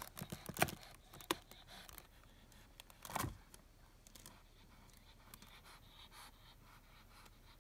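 A cat moving about inside a wooden drawer: faint scratching, scraping and tapping of claws and paws on the boards, with a louder bump about three seconds in.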